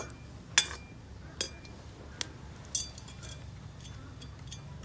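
Metal ladle clinking against an iron kadai four times in the first three seconds, each with a short metallic ring, as it stirs dried red chilies and whole spices frying in oil.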